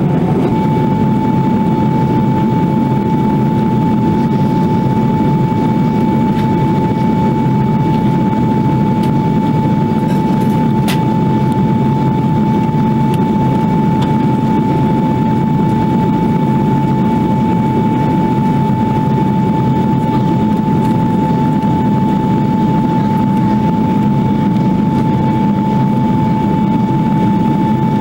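Steady roar of a jet airliner in flight, heard from inside the cabin: engine and airflow noise, with a steady single-pitch whine over it.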